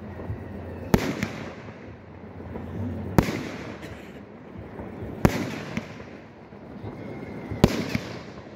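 Aerial firework shells bursting overhead: four sharp bangs about two seconds apart, each followed by a brief crackle.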